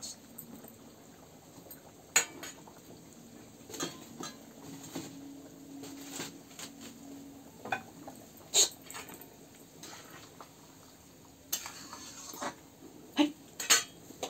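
A metal spatula clinking and scraping against a steel kadai as a simmering curry is stirred. The knocks are scattered and sharp, with a quick pair near the end.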